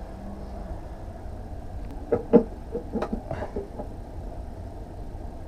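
Metal engine parts and tools clinking and knocking in a quick cluster of sharp hits about two seconds in, as pieces are handled and set down during engine disassembly, over a steady low hum.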